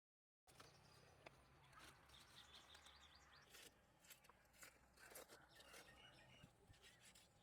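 Near silence: faint outdoor ambience with scattered soft clicks and a few faint bird chirps about two seconds in, after a moment of total silence at the start.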